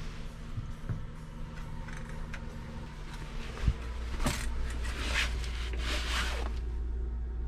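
Rustling and scraping handling noises, with a sharp click a little past halfway after which a low steady hum continues.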